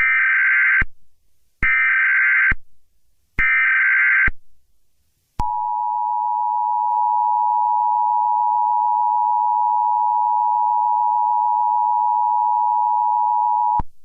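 Emergency Alert System tones: three short data bursts of the SAME header, under a second each with short gaps between them. Then the EAS two-tone attention signal, a steady dual tone held for about eight seconds before it cuts off, which announces the spoken alert.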